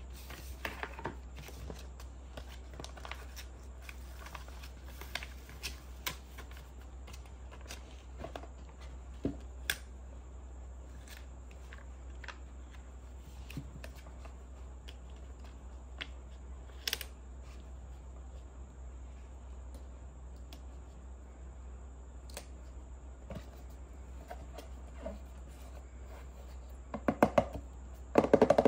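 Hands handling plastic toy kitchen pieces and paper card: scattered light clicks and taps, with a quick run of louder plastic knocks near the end as the plastic box is handled.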